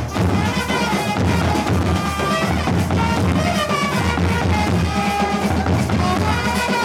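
Village drum band playing for karakattam dancers: large bass drums beaten in a steady, driving rhythm, with a melody line running over the drumming.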